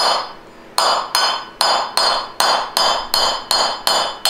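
Hammer striking a steel punch to drive the old bushing out of a 4L60E transmission pump's stator shaft: sharp metallic blows, each ringing briefly. One blow, a short pause, then a steady run of about ten, a little over two a second.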